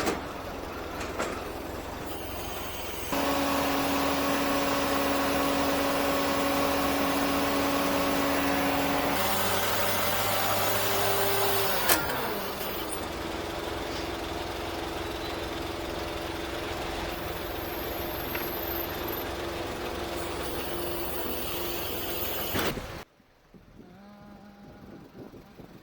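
Ladder truck's engine and hydraulic lift running steadily with a held whine that shifts in pitch a few times, then cuts off near the end.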